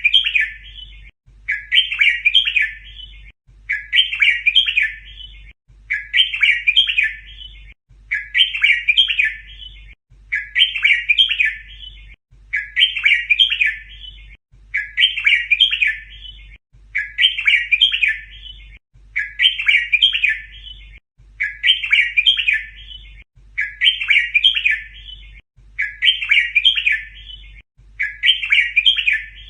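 Red-whiskered bulbul song: the same short, chirpy phrase repeated about every two seconds, nearly identical each time, as in a looped training recording for teaching young bulbuls to sing.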